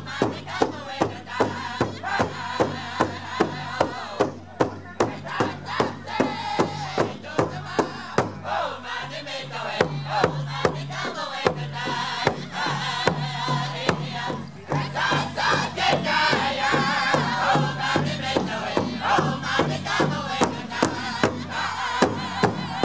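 Powwow drum group singing: men's voices in chorus over a big drum struck in a steady beat of about three strikes a second.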